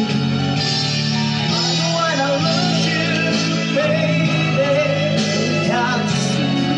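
Karaoke: a voice singing a melody into a microphone over a recorded backing track with a steady bass line.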